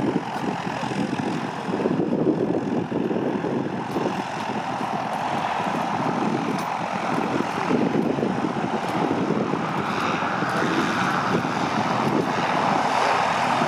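Electric light aircraft taxiing with its propeller turning: a steady propeller noise that grows a little louder near the end.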